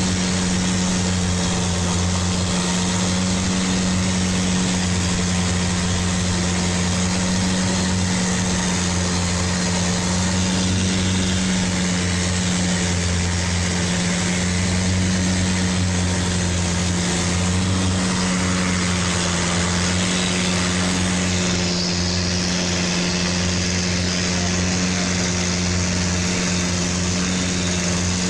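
Long-tail boat engine running steadily under way, a low even drone with a constant hiss over it.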